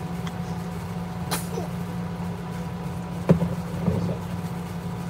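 Steady low machine hum aboard a boat, with a click about a second in and a sharper knock a little past halfway.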